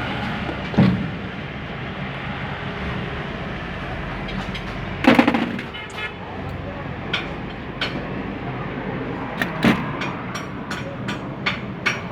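Sharp metallic clicks and knocks of hand tools and parts being handled, over a steady mechanical hum. The loudest knock comes about five seconds in, and a quick run of light ticks fills the second half.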